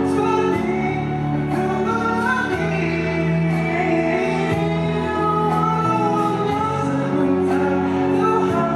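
A man singing a slow song into a microphone over instrumental accompaniment, holding long wavering notes above a steady bass line.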